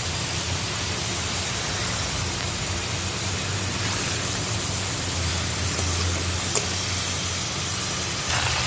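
Green chilli and potato pieces sizzling in hot oil in a pan, a steady hiss, with a steady low hum underneath. A single click about six and a half seconds in.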